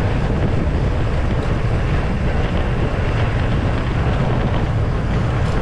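Steady rushing wind noise on the microphone of a camera on a moving bicycle, mostly a deep rumble.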